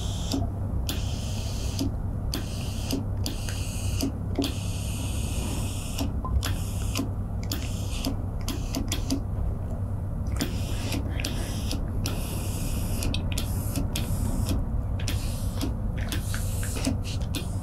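Industrial steam iron with an overhead hose hissing in short repeated bursts, starting and stopping every second or so, over a steady low hum.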